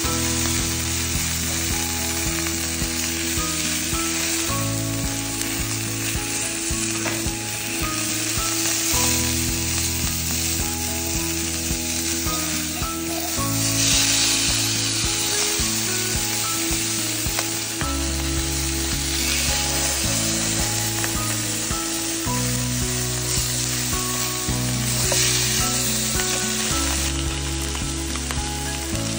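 Salmon fillets and skins sizzling steadily as they fry in an oiled nonstick pan, with background music of slow-changing low notes underneath.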